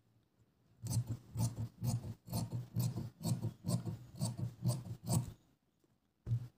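Large tailor's shears snipping through fabric, a steady run of about two or three cuts a second that starts about a second in and stops, with one last snip near the end.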